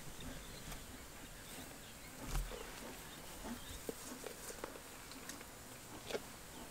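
Faint outdoor animal sounds: scattered soft clicks and brief short calls over a quiet background, with one louder low knock about two seconds in.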